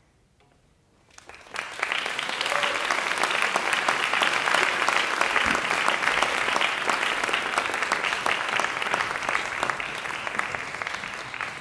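Audience applause: after about a second of near silence, dense clapping breaks out and carries on, easing slightly near the end.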